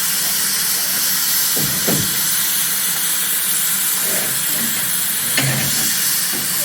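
A standing steam locomotive hissing steam steadily, with a couple of short knocks about two seconds in and again near the end.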